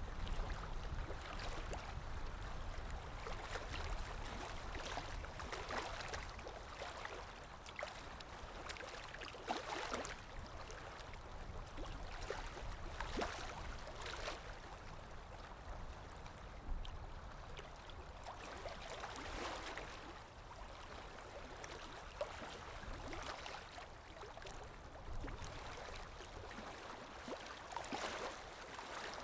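Running water, like a stream, flowing and gurgling, swelling and easing every few seconds.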